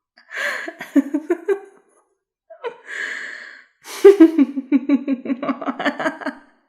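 A woman's evil laugh sound effect: a short burst of cackling laughter, a sharp breathy inhale, then a long run of rapid rhythmic cackling at about five pulses a second, loudest as it starts about four seconds in.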